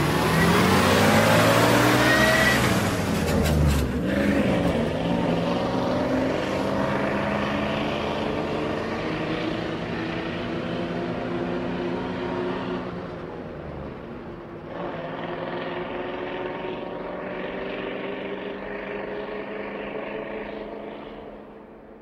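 School bus engine, heard from outside. Its note shifts in pitch over the first few seconds as the bus pulls up, then it idles steadily, and it fades out near the end.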